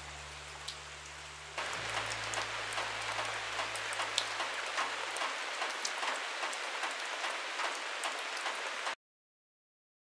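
Steady rain pattering on a caravan awning, with many separate drop hits. It gets louder about a second and a half in and cuts off abruptly near the end. A low steady hum runs underneath for the first half.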